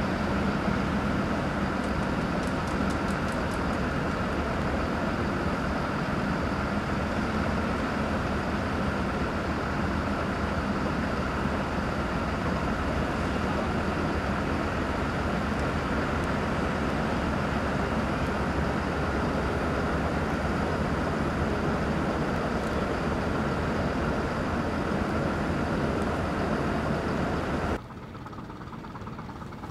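Heavy diesel engine running steadily at close range, with a constant low hum. Near the end it suddenly drops to a quieter, more distant engine sound.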